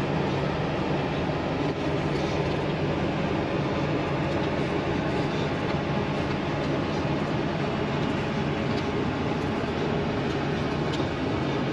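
Steady mechanical drone with a low hum, unchanging throughout. Over it come a few faint small clicks from plastic wire connectors being handled and pushed together.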